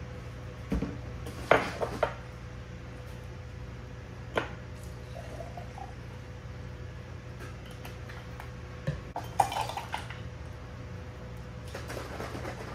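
Glass bottles and drinking glasses knocked and set down on a granite countertop, clinking sharply in a few clusters, with a short pour of liquid into a glass near the middle. A steady low hum runs underneath.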